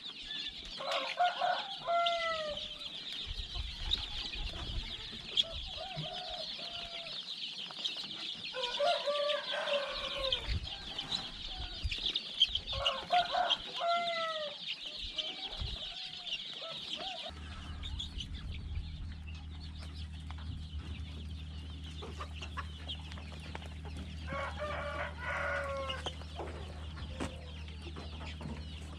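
A dense chorus of chicks and young pheasants peeping, with louder downward-sliding clucking calls every few seconds. About two-thirds of the way through the peeping drops away and a steady low hum comes in under the calls.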